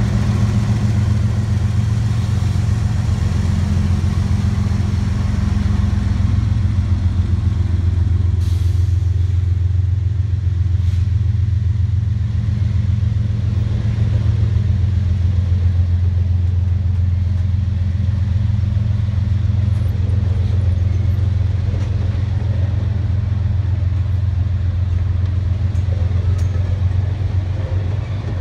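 A train passing close by: the steady low rumble of CSX diesel locomotives pulling away, with the passenger cars rolling past on the rails.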